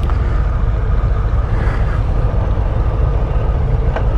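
Harley-Davidson Street Bob's 114-cubic-inch Milwaukee-Eight V-twin idling with its stock exhaust, a steady low rumble.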